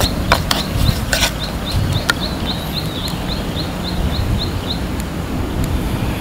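Outdoor ambience: a short high chirping call repeated about four times a second that stops about five seconds in, over a steady low rumble, with a few sharp knocks in the first two seconds.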